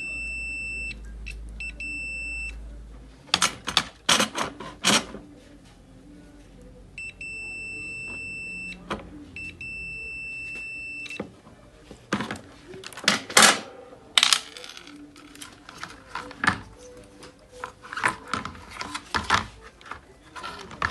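Multimeter continuity beeper giving a steady high beep as the probes sit across the induction cooker's IGBT, the sign of a dead short. The beep breaks off briefly a few times, stops, then sounds again for about four seconds in the middle. Sharp clicks and knocks of probes and parts being handled come between and after, loudest a little past the middle.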